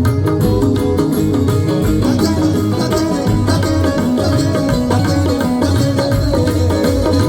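Loud live band music of Punjabi folk style, dense and even, with a strong bass and a steady drum beat.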